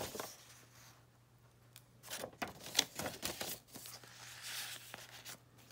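Paper pages of a handmade journal rustling and flapping as they are turned and handled: a brief rustle at the start, a lull, then more rustling from about two seconds in.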